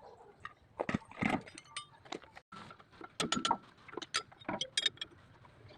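Irregular metallic clinks and knocks: metal tools and parts handled and set down, some hits ringing briefly.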